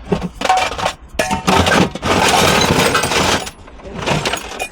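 Hard metal objects clinking and clattering as hands rummage through a box of small brass ornaments and tools: a few separate clinks, then a dense clatter for about two seconds.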